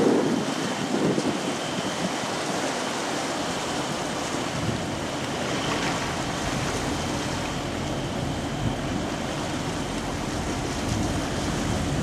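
A steady rush of churning water from a container ship's propeller wash and wake. Wind buffets the microphone in gusts at the very start.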